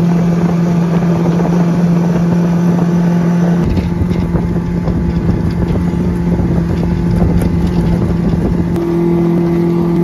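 Yamaha four-stroke outboard motor running steadily at speed, pushing the boat across the river. Its even drone is mixed with the rush of wind on the microphone.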